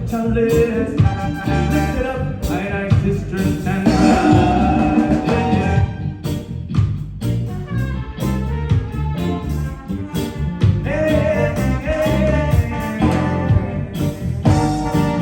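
Live reggae band playing loudly with a lead singer, drums, bass, guitars, keys and a horn section, with held sung or horn lines twice.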